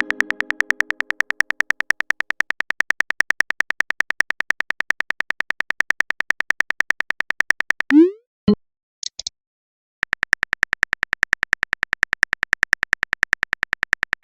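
Phone-keyboard typing sound effect: rapid, evenly spaced clicks. They stop near 8 s for a short rising 'bloop' message sound and a brief click, then pick up again about 10 s in.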